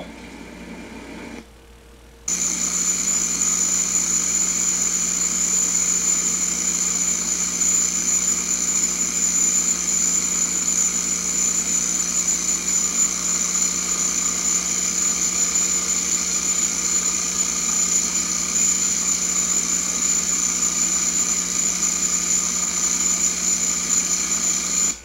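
Hydro-Tek SC Series pressure washer running steadily: a low engine and pump hum under a strong high hiss. It starts suddenly about two seconds in and holds unchanged.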